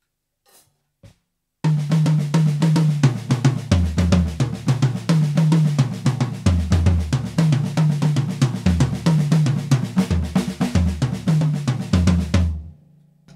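Drum kit played in a fast, continuous run of strokes: Swiss Army flam triplets extended to fives (accented right, quiet left, then a flammed right, right, left) phrased around the kit with snare and bass drum. It starts about two seconds in and stops shortly before the end.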